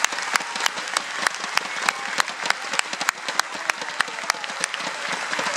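Arena crowd applauding, a dense patter of many hands, with one set of claps standing out in a steady beat of about three a second.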